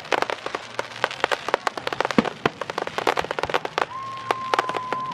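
Fireworks going off: a rapid, continuous crackle of sharp pops and cracks. A steady whistling tone joins about four seconds in.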